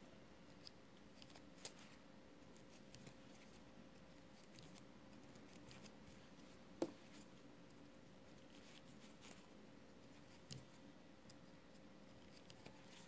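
Quiet scattered clicks and light scratches of a knitting pick lifting yarn loops over the plastic pegs of a circular knitting loom, with one sharper click about seven seconds in. A faint steady hum lies underneath.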